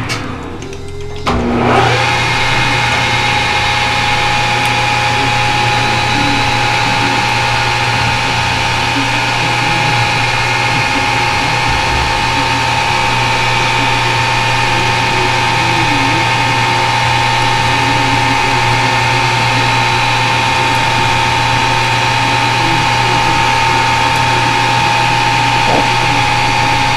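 Lathe running steadily: an even machine hum with fixed tones, starting up about two seconds in after a short lull and holding at constant speed.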